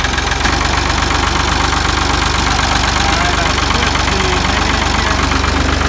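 Ford 2000 tractor engine running steadily at a fast, even beat.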